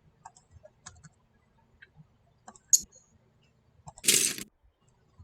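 LEGO pieces being handled and snapped together: scattered light clicks, one sharp click a little before the middle, and a brief rattling rustle of parts about four seconds in.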